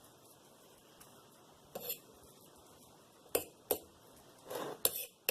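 A handful of short, light clinks and knocks of kitchen utensils and dishes, spread unevenly, with two close together near the end.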